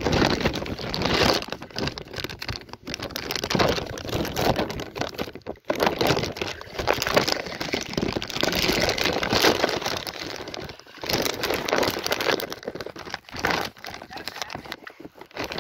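A plastic bag crinkling and rustling right over a phone's microphone as the bagged phone is handled and carried, a loud, dense crackling that comes in waves with short lulls.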